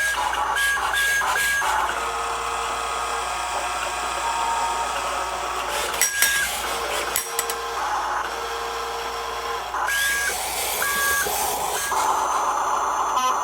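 Huina 1:14 full-metal RC excavator working: its electric motors and gears whir steadily, with two-tone electronic beeps from its sound module near the start and again near the end.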